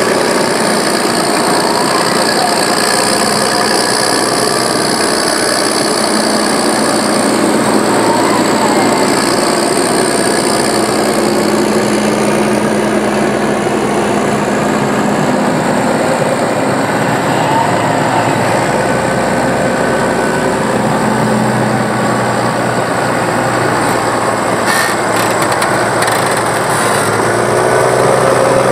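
New Holland T7070 tractor's 6.7-litre NEF diesel engine, tuned for extra boost and power, running steadily and loudly through an open exhaust pipe.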